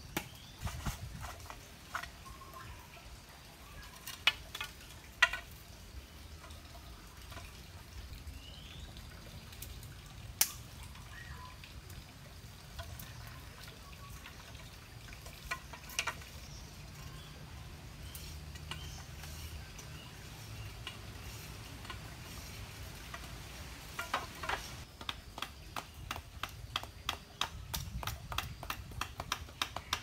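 Hand tools knocking against charcoal and clay: scattered sharp clicks over a faint low rumble, then a fast run of knocks in the last several seconds.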